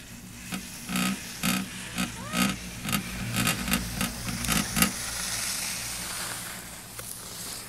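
Chairlift ride: a run of quick metallic-sounding knocks, about two a second for some four seconds, then a steady rushing hiss that fades near the end.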